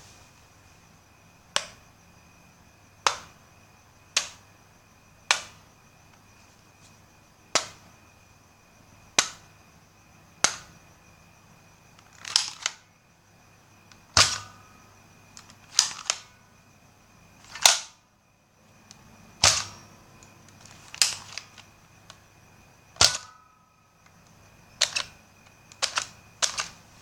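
Nerf foam-dart blaster being fired and cocked: a series of sharp plastic snaps and pops, at first about one every one to two seconds, then coming in quick pairs and clusters in the second half, a few with a short spring ring after them.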